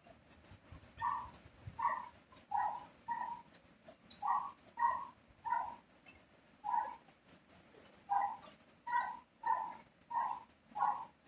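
A dog barking over and over, about a dozen short, fairly high-pitched barks at irregular spacing with brief pauses, over a faint steady hiss of rain.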